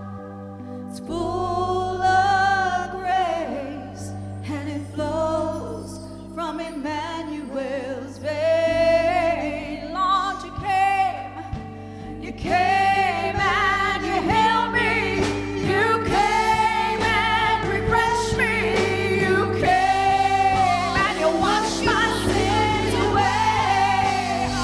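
A church worship song: sung melody over a band with steady bass. About halfway through the band fills out, with drums coming in and the singing getting louder.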